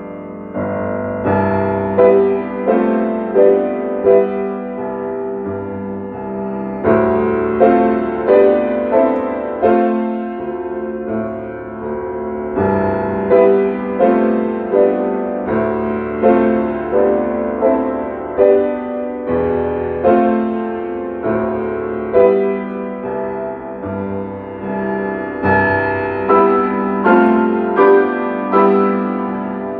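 Solo piano music played on a Yamaha grand piano: melody notes over chords, struck in phrases with quieter stretches between them.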